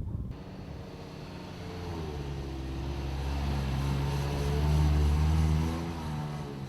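Mitsubishi Outlander XL's 2.4-litre four-cylinder engine revving under load, its pitch climbing and then holding steady as it grows louder, before easing off near the end.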